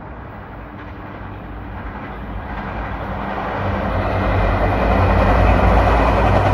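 Passenger train approaching: the rumble of wheels on rail and a steady low engine drone grow steadily louder, reaching their loudest near the end.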